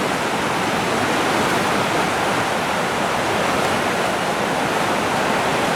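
Steady rushing of river rapids: white water running over rocks, an even, unbroken wash of noise.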